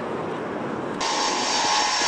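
Four-engined Ilyushin Il-76 jet climbing away, its engines a distant rumble. About a second in, this gives way abruptly to a nearer Il-76MD's turbofan engines running with a steady, high-pitched whine.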